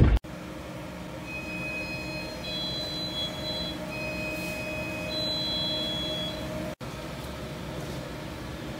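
Steady room hum inside a shop, from refrigeration and kitchen equipment, with faint high steady whining tones that come and go in the middle. The sound drops out for an instant twice, about a quarter second in and near the end.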